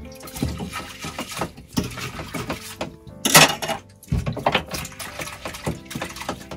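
Washing up by hand in a small stainless-steel sink: dishes and cutlery clinking and clattering against each other and the sink, with water sloshing. The loudest clatter comes about three seconds in.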